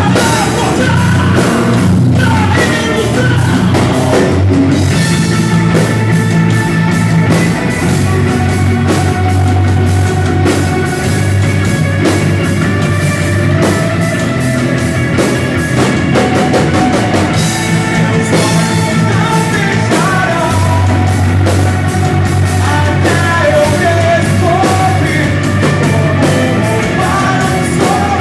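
Loud rock song with drums, bass and a singing voice running throughout.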